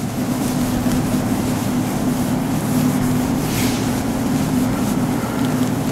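Chalkboard duster rubbed steadily over a chalkboard, wiping off chalk writing.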